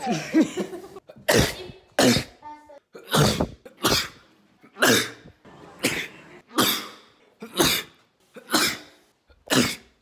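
A man sneezing over and over, about ten loud, sudden sneezes in quick succession, roughly one a second.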